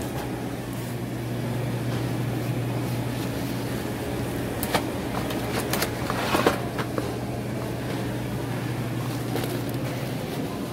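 Steady low hum of a store's air handling or refrigeration. About halfway through come a few brief knocks and crinkles of a cardboard bakery box being handled.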